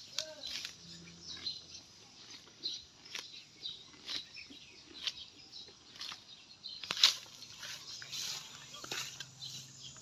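Zebu cow grazing, tearing off mouthfuls of grass: short crisp ripping snaps every second or so, irregularly spaced, the sharpest about seven seconds in.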